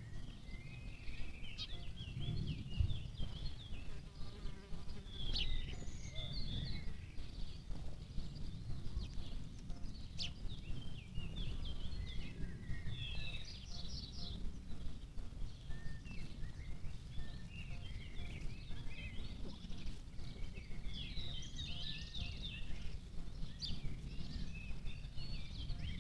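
Small birds chirping and twittering in short clusters, over a continuous low rumble.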